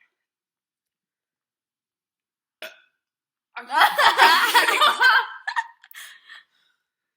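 Girls burping and laughing after gulping soda: a brief sound, then about three and a half seconds in a loud burst under two seconds long, trailing off into a few smaller sounds.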